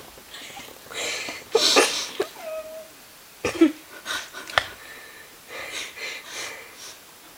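A sleeping person snoring in several wheezy, breathy bursts, one ending in a short whistle.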